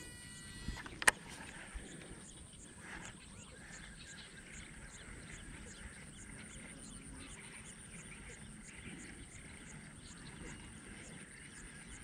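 A single sharp click about a second in, as a baitcasting reel is engaged after a cast. Then faint, steady outdoor ambience with an even high ticking about three times a second.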